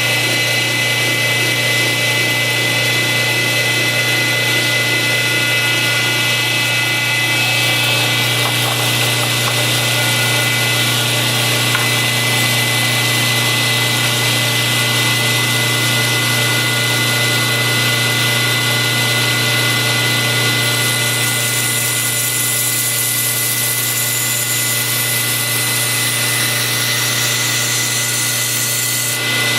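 Electric shop sharpening machine running steadily with a constant hum, used to put an edge on a knife blade. A higher hiss comes in about two-thirds of the way through.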